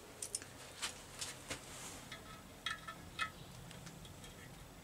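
A handful of light metallic clicks and clinks as main bearing shells are handled and seated in the Reliant 850 engine's crankcase saddles, the sharpest about three seconds in, then quieter.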